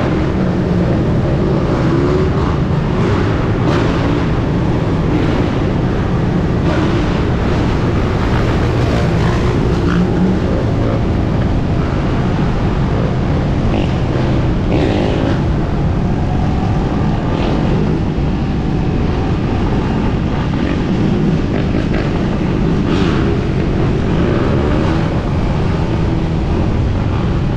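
Dirt bike engine running as the bike is ridden along, with wind buffeting the microphone and now and then a brief louder surge.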